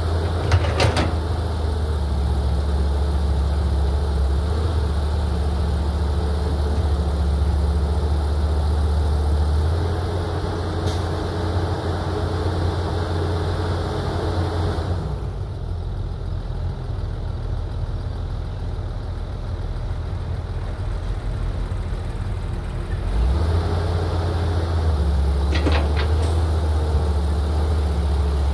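Caterpillar 320 hydraulic excavator's diesel engine running under load with a steady low drone, its note easing off through the middle and picking up again near the end, with a few sharp knocks at the start and again near the end.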